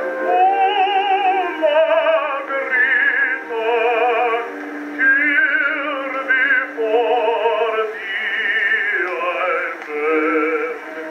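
Acoustic-era Edison Diamond Disc record playing: an operatic tenor sings with wide vibrato over a small orchestra. The singing enters about half a second in after an orchestral phrase. The sound is thin, with no deep bass and no high treble, as on early acoustic recordings.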